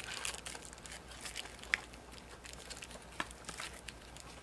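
Stiff clear plastic bearing packaging crinkling and crackling as gloved hands twist and pull at it, with a couple of sharper clicks.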